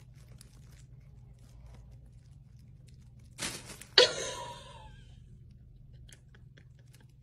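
A sharp knock with a short ringing decay about four seconds in, just after a brief scraping rush, over a steady low hum and faint ticking.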